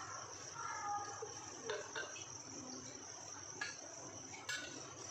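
A few light metal clinks from a steel oil pot handled against an aluminium pan as oil is poured in. Behind them runs a steady high-pitched insect-like trill.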